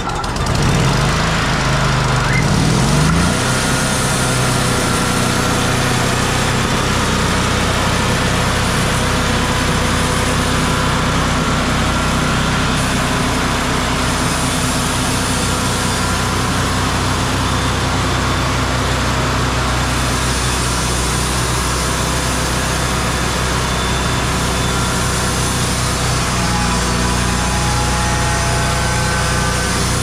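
Wood-Mizer LT35 sawmill's engine running steadily, its pitch rising over the first few seconds and then holding.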